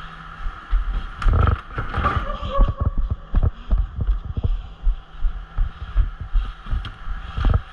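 Footsteps and gear knocking close to the microphone: irregular low thumps a few times a second, with a few sharper knocks.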